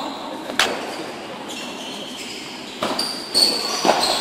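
Padel ball knocks from racket hits and bounces on the court: one sharp knock about half a second in, then a run of four quick knocks in the last second and a half, with short high squeaks among them.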